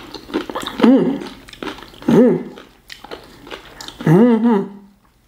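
A woman chewing a mouthful of crunchy tortilla chip and dip, with three short wordless "mm"/"ooh" sounds through pursed lips, the last one longer and wavering near the end: she is reacting to the food being too hot.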